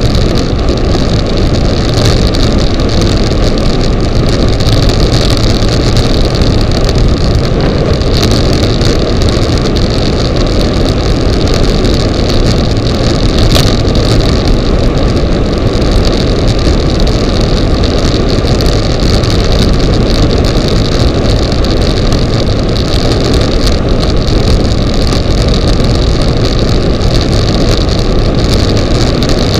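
Loud, steady wind rushing over the microphone of a camera mounted on a bicycle descending a mountain road at speed.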